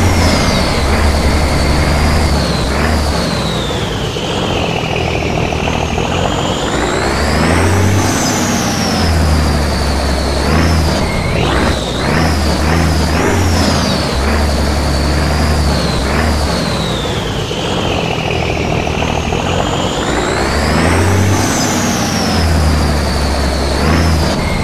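Truck engine sound from a scale RC model of an M54A2 6x6 military truck: a low rumble that cuts in and out, under a high whine that falls and then climbs in pitch twice.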